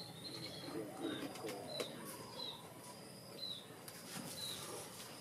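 A bird chirping over and over, short high chirps that drop slightly in pitch, about one a second or a little faster, with a few light clicks among them.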